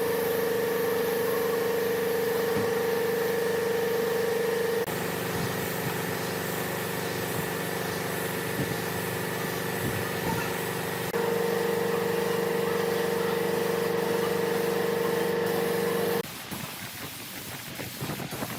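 Electric power tool motor running at a steady speed with a strong humming tone. Its sound shifts abruptly about five and eleven seconds in, then cuts off suddenly near the end, leaving a softer hiss.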